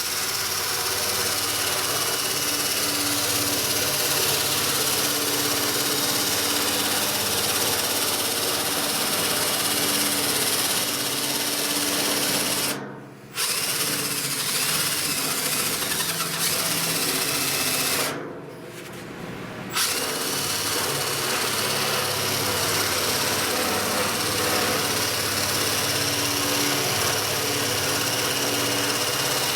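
Handheld electric power cutter running continuously with a rapid reciprocating chatter as it cuts a curve through the steel sheet metal of a barrel stove. It stops briefly about 13 seconds in and again for nearly two seconds a few seconds later, then carries on cutting.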